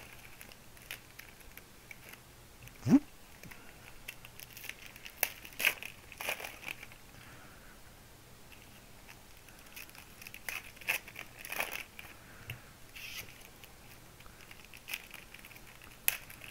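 Foil trading-card pack wrapper crinkling and cards being shuffled in gloved hands, in scattered soft crackles and clicks.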